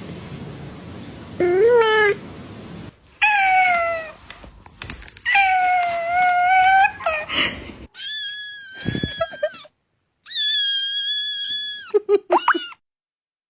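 Cats meowing in a run of separate clips: a couple of short meows, then a long drawn-out meow. Two long, high-pitched, steady cries follow, and a few short squeaky calls near the end.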